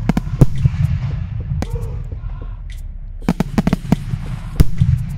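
Fireworks going off: a rapid, irregular series of sharp bangs and cracks, thickest about a second and a half in and again past the middle, over a steady low rumble.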